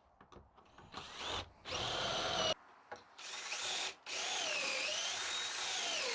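Power drill boring pocket holes in wood: a few light clicks, then three runs of the drill, the last and longest starting about four seconds in, its whine rising and falling as the load changes.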